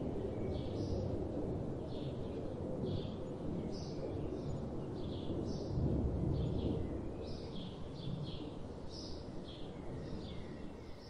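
A small bird chirping over and over, short high chirps coming about one or two a second, over a steady low rumble.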